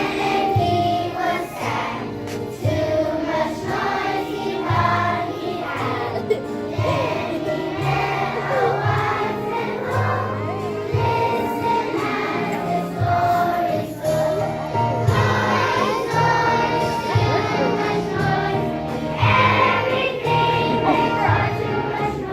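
First-grade children's choir singing a song together over an instrumental accompaniment with a moving bass line.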